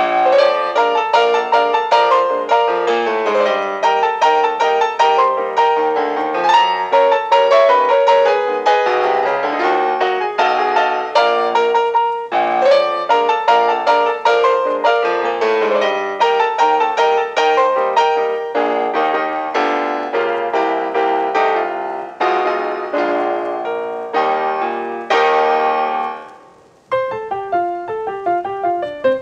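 Solo ragtime piano music with a brisk, steady beat; near the end it briefly drops away and then picks up again.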